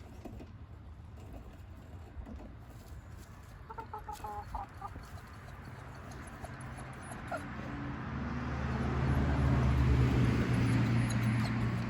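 Chickens clucking a few short clucks about four seconds in. In the second half a low, steady engine-like drone swells up and becomes the loudest sound, easing off slightly near the end.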